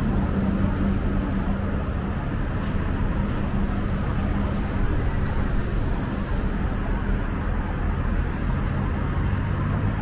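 Busy city street traffic: a steady rumble of passing cars and buses, with a low engine hum, strongest in the first few seconds.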